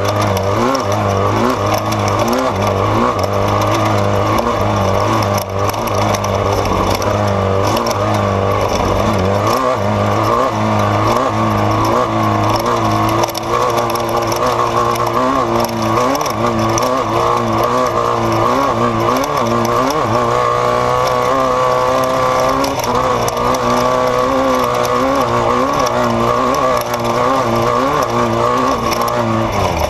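Off-road race vehicle's engine running hard, its pitch rising and falling again and again as the throttle comes on and off.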